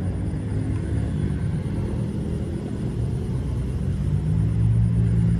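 Low engine rumble with a steady hum, growing louder about four seconds in.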